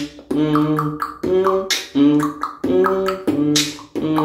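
Beginner-level beatbox, the 'first week' stage: a simple, steady mouth-made beat of short hummed, pitched notes, with a hissing snare sound about every two seconds.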